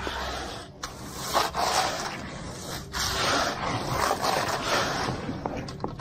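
Straight screed board pulled through wet concrete: a gritty wet scraping that comes in a few long strokes, with brief knocks between them.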